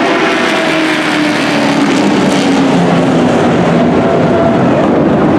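Several dirt-track race trucks' engines running loud as the field passes under the checkered flag at the finish, their engine notes sliding down in pitch.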